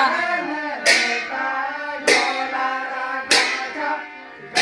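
Folk song with a harmonium holding the tune under group singing, while a pair of brass hand cymbals crashes about every 1.2 seconds, four strikes in all.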